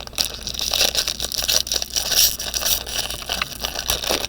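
Trading card pack wrapper crinkling and cards scraping against each other as a pack is opened and handled: a dense run of small crackles and rustles.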